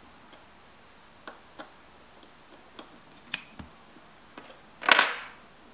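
Scattered light metallic clicks of an Allen key turning the screw of a ROCKIT 88 delid tool against a CPU's heat spreader, with a louder short rasp about five seconds in. The screw now turns with no resistance left, a sign that the lid's adhesive has let go.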